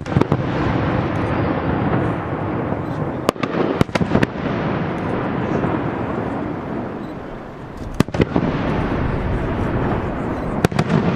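Aerial fireworks bursting: sharp bangs at the start, in a quick cluster of three about three seconds in, a pair about eight seconds in and again near the end, with a continuous rumbling, crackling wash between them.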